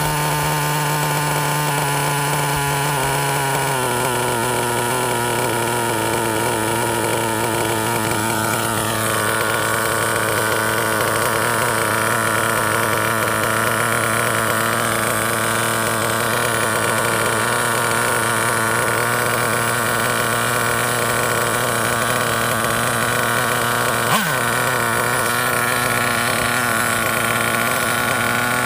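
Glow-fuel engine of a nitro Stampede RC truck idling steadily, its pitch settling slightly lower a few seconds in.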